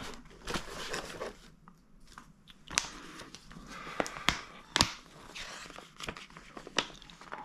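Paper rustling and crinkling as an instruction booklet is opened and handled, with a few sharp taps in the middle.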